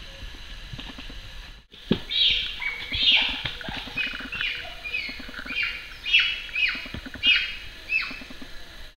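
A run of loud, high calls, each falling in pitch, about two a second, starting right after a brief cut-out about two seconds in.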